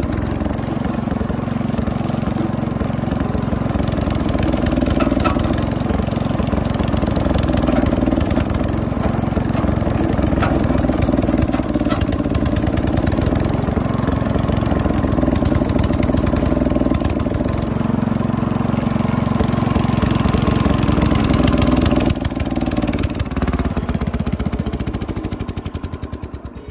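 Engine of an old Wheel Horse lawn tractor running steadily while the tractor is driven, its level falling away over the last few seconds.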